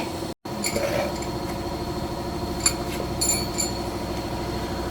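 Motorcycle engine idling steadily, with a few light metallic clinks of tools or parts about two and three seconds in.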